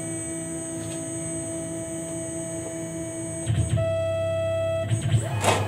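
Steady electrical hum from a CNC milling machine. About three and a half seconds in, the axis drive starts with a steady whine and a low drone as the machine moves the touch probe in its centre-finding routine.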